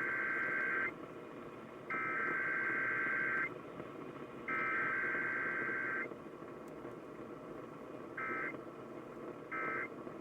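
Emergency Alert System SAME data bursts: three long, screechy digital header bursts about a second and a half each, followed about two seconds later by three short end-of-message bursts, over a faint steady broadcast hum.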